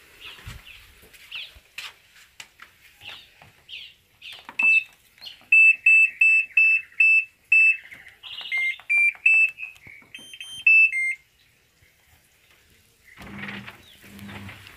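Top-loading washing machine's control panel beeping as its buttons are pressed: a run of short beeps at one pitch, then a few beeps stepping up and down in pitch, ending about eleven seconds in.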